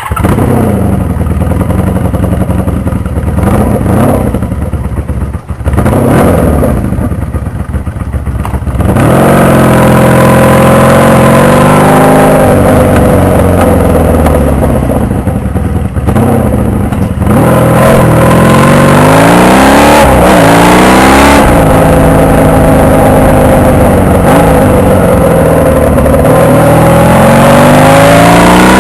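Honda VF750 V4 motorcycle engine accelerating hard, its pitch climbing and dropping back again and again as it revs out and shifts up through the gears, very loud and close.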